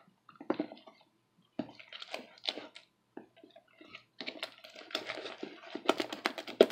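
Slime being stirred with a spoon in a bucket as borax activator is mixed in. It starts with scattered clicks and sticky squelches, then turns into quick, rapid clicking about four seconds in.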